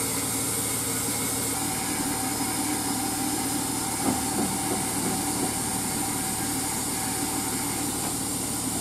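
TATA heavy lorry's diesel engine running steadily as the loaded truck creeps round a tight hairpin bend, with a steady high hiss over it. A brief knock about four seconds in.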